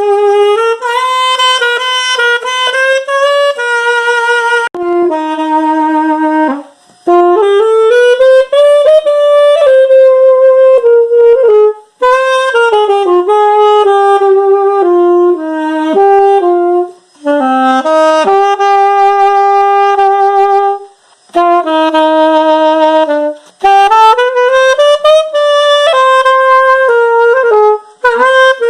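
Parisian Ambassador alto saxophone, its lacquer stripped, playing a solo melody in phrases with short breath pauses between them.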